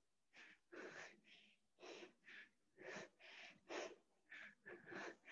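Faint, hard breathing of a person exerting themselves in a dumbbell workout: short puffs of breath about twice a second.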